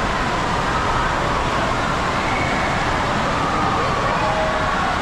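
Steady rushing water and echoing din of an indoor water park, with faint distant children's voices wavering through it.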